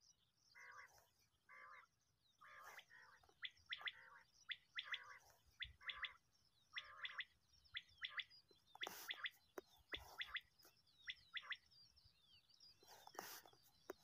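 Common quail calling: rough, lower notes repeated about once a second, then from about three seconds in sharp, high whistled notes in quick pairs and threes, repeated in bursts.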